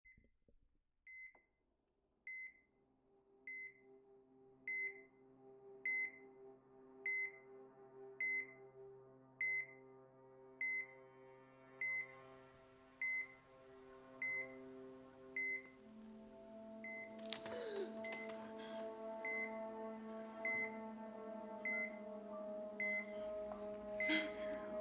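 Hospital heart monitor beeping steadily, a little slower than once a second, over a low sustained music drone that builds and grows louder. A rushing swell comes in around two-thirds through and again near the end.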